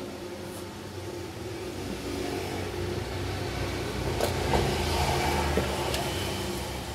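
Motor vehicle traffic, an engine rumbling and swelling louder for a couple of seconds in the middle as a vehicle passes. A few light taps and clicks come over it.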